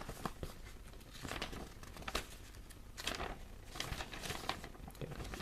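Packaging rustling and crinkling as it is handled, in short scattered bursts with a few light clicks: the hair dryer's box contents and instruction leaflet being taken out and turned over.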